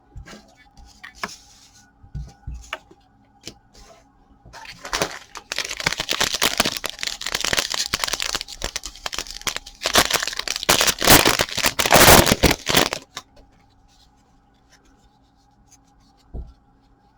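Plastic foil trading-card pack being torn open and its wrapper crinkled: a dense stretch of tearing and crackling starting about five seconds in and lasting some eight seconds, after a few light clicks of cards being handled.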